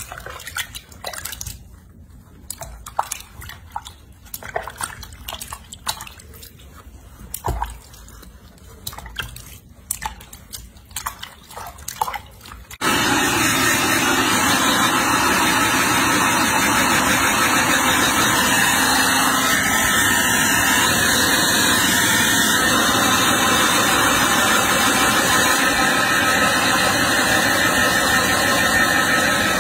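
Water sloshing and small splashes with scattered clicks as a baby monkey is washed by hand in a sink basin. About halfway through, a hair dryer switches on abruptly and blows with a loud, steady rushing noise.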